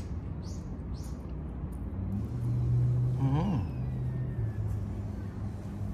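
Low steady hum of a distant engine, swelling a little in the middle. About three seconds in there is one short rising-and-falling call.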